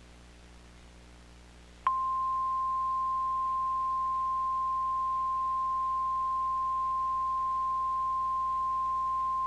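NOAA Weather Radio 1050 Hz warning alarm tone: a single steady high tone that starts about two seconds in and sounds for about eight seconds, over a faint hiss. It signals that a warning broadcast, here a flash flood warning, is about to follow.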